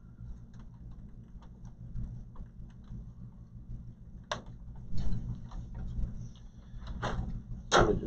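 Clicks and knocks of a graphics card being worked free of its motherboard slot latch and pulled out of a desktop case, over a steady low background hum. The sharpest click comes about four seconds in, with more knocks near the end as the card comes out.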